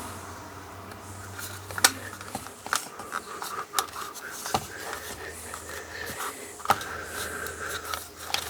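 Small plastic parts of a mosquito trap's housing being handled and fitted together: a handful of sharp, separate clicks and knocks a second or so apart over a faint steady background.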